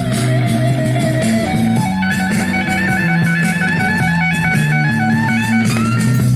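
Rock music playing through a home stereo's speakers: an instrumental passage led by electric guitar over a bass line, before the vocals come in.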